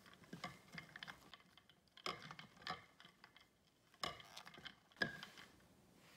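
Spatula folding thick whipped cream in a glass bowl: irregular clicks and taps of the spatula against the glass with soft squishing of the cream. The sharpest tap comes about five seconds in.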